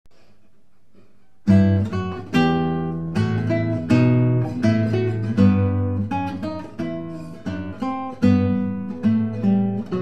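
Acoustic guitar music: plucked notes and chords, each ringing and fading, beginning about one and a half seconds in after a moment of faint hiss.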